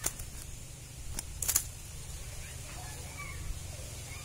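Handling sounds of a fish being worked free of a cast net by hand: a few sharp crackling clicks, the loudest a short cluster about a second and a half in, over a low steady rumble.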